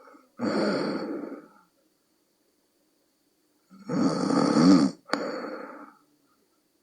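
A sleeping person snoring, with deep bullfrog-like croaking snores: a short one about half a second in, then a longer one about four seconds in that breaks off sharply with a click near the five-second mark and trails on briefly.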